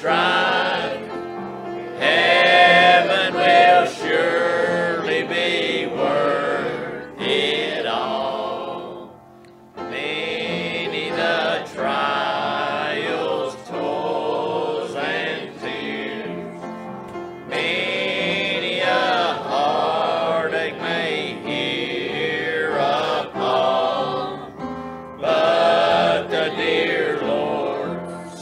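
Church choir of men's and women's voices singing a hymn together, in sustained phrases with short breaths between them.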